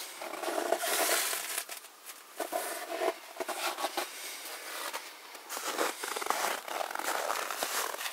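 Footsteps crunching in dry, frozen snow, an irregular run of crunches.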